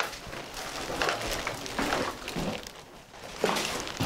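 Footsteps and rustling as a person walks over paper-strewn flooring carrying plastic bags, in a string of irregular scuffs and crinkles, with a sharp knock at the very end.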